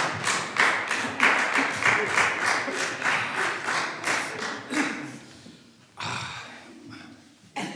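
An audience clapping after a song, dying away about five seconds in, then a brief faint noise about six seconds in.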